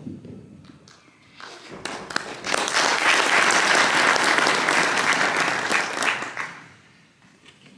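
Audience applauding: the clapping swells over about a second, holds for about four seconds, then dies away.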